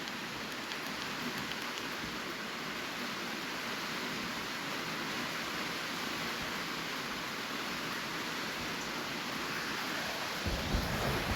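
Steady rain falling, an even hiss throughout, with a low rumble of thunder starting near the end.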